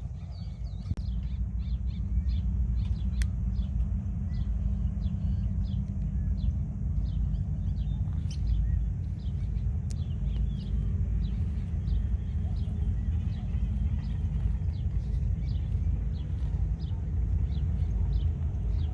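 Ladder-backed woodpeckers calling: short, high, sharp calls repeated irregularly throughout, over a steady low rumble.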